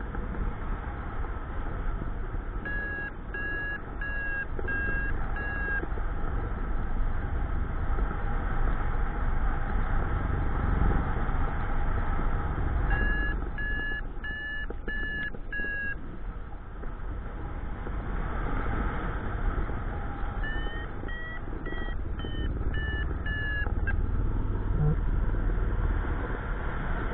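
Paragliding variometer beeping in three runs of short, evenly spaced beeps, about two a second, signalling that the glider is climbing. Wind rushes steadily over the microphone throughout.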